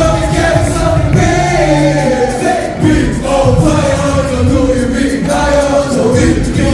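Live amplified hip-hop performance: several young male voices singing and rapping together over a loud beat.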